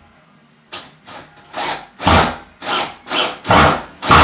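A run of about eight quick scraping strokes, like sawing or rasping, starting about a second in and getting louder toward the end.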